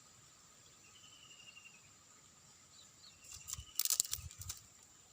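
Outdoor insect ambience: a steady high drone with short chirping trills repeating about every two seconds. About three seconds in comes a burst of rustling, clicks and knocks that lasts a little over a second.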